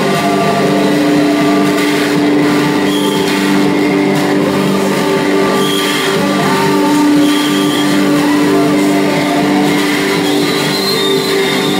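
Loud live electronic music played on table-top gear: layered sustained drones under a noisy haze, with short high tones cutting in now and then.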